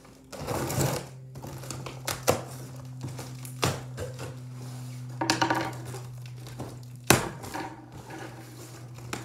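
Cardboard box being cut open with scissors and its taped flaps pulled apart: scattered scrapes, tape rips and cardboard knocks, with a sharp knock about seven seconds in, over a steady low hum.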